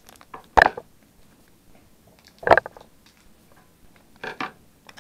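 A foil trading-card booster pack handled by hand: two loud, sharp handling noises about half a second and two and a half seconds in, and a few fainter crinkles near the end.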